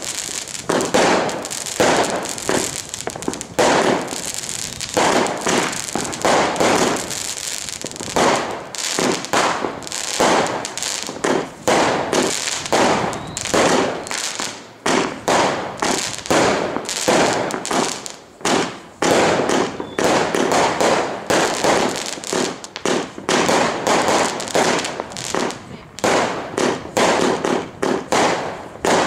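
Fireworks going off in a dense, continuous run of bangs and crackles, many overlapping reports each second with no pause.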